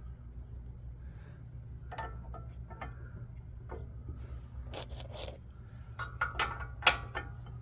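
Tools and metal brake parts being handled: scattered clinks, knocks and scrapes, a few ringing briefly, with the sharpest clink about seven seconds in. A steady low hum runs underneath.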